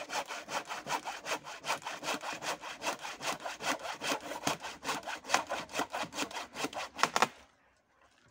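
Hand saw cutting through wood with quick, even back-and-forth strokes, stopping about seven seconds in.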